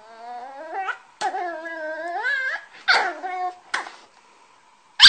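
Cavalier King Charles Spaniel puppy whining and howling in several drawn-out calls that rise in pitch, broken by a few short sharp yips.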